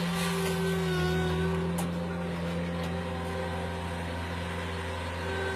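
Diesel engine of a small paving-stone laying machine running steadily, a constant low hum with a few faint ticks.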